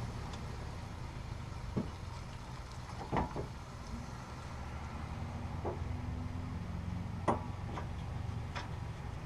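Steady low engine-like hum with a few scattered sharp metallic clanks, about five of them, the loudest a little after three seconds and around seven seconds in: hand tools knocking on the brake and hub hardware.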